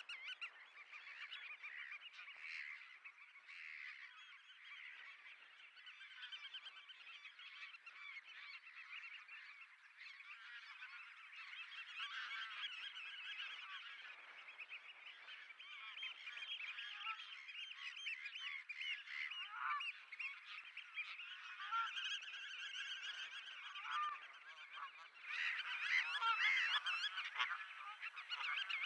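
A flock of black-tailed godwits calling together: a dense, unbroken chorus of short nasal calls that grows louder in the last few seconds.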